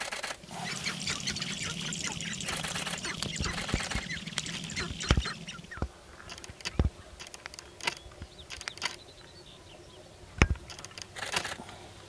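Male sharp-tailed grouse displaying on a lek, with duck-like clucking and cackling calls. A dense, rapid chatter of calls and clicks fills the first five seconds, then come scattered calls and a few loud sharp knocks.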